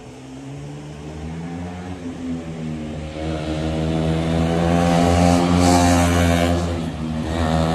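Motorcycle engine accelerating, its pitch and loudness climbing steadily for a few seconds, then dropping back as the throttle eases before it picks up again near the end.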